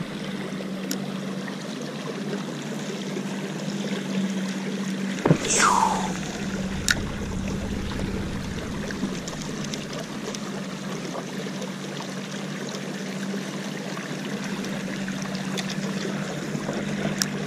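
Water lapping and trickling against a canoe hull, over a steady low hum. About five seconds in there is a low thump and a short falling whistle-like sweep.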